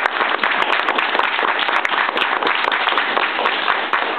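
Audience applauding at the end of a performance: many hands clapping in a dense, steady applause.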